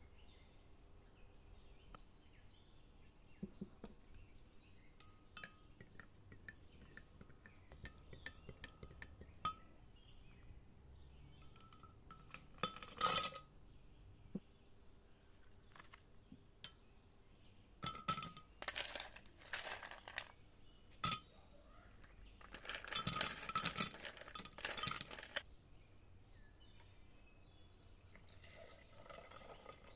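Ice cubes dropped into a cut-glass pitcher, clattering and clinking against the glass in a run of bursts over several seconds, with scattered lighter clinks of glassware before them.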